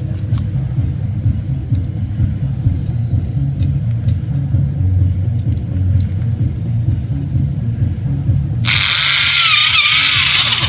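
A steady low rumble, then about nine seconds in a handheld electric drill runs loudly for about two seconds, its bit in the joint of two galvanized steel greenhouse arch tubes, the motor whine wavering in pitch under load.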